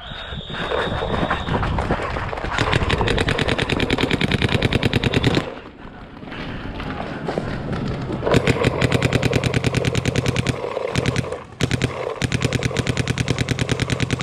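Paintball marker firing in long strings of rapid shots, more than ten a second, with short breaks about five and eleven seconds in.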